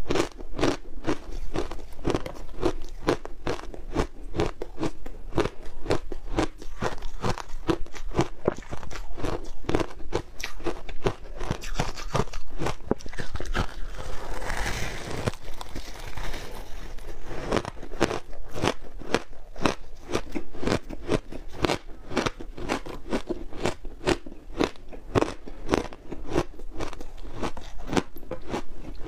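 Matcha shaved ice dusted with milk powder being bitten and chewed: rapid, crisp crunching throughout, with a longer, denser crunch about halfway through.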